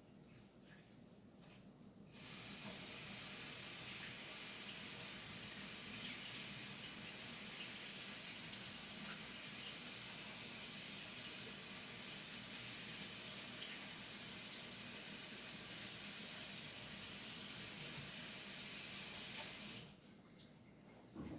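Water running steadily from a sink tap while paint is rinsed off gloved hands under it; the tap is turned on about two seconds in and shut off near the end.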